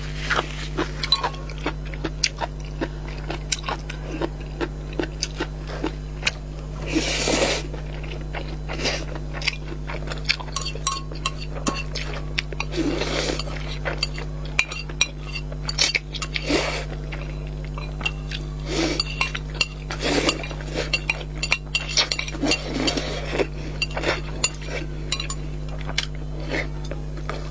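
Mukbang eating sounds: chopsticks clicking and scraping against a ceramic bowl, with noodles slurped and chewed in several longer bursts, over a steady low hum.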